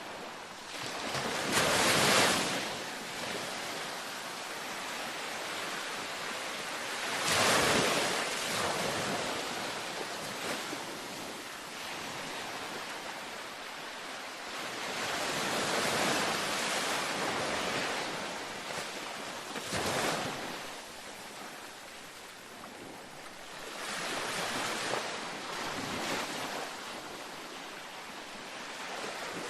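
Ocean waves breaking on a beach, a steady surf wash with a wave swelling and crashing every few seconds, the sharpest about 2, 7 and 20 seconds in.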